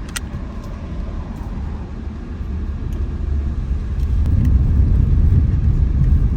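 Road rumble of a 2017 Hyundai Tucson driving on a dirt road, heard from inside the car, a steady low rumble that grows louder about halfway through as the car picks up speed, with a few light clicks.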